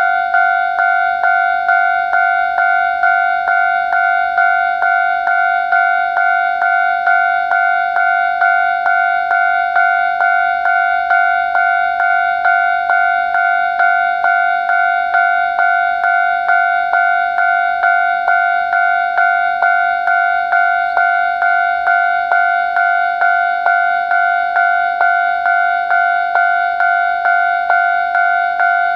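Japanese railway level-crossing warning bell, an electronic 'kan-kan' ding repeating steadily at about two strikes a second.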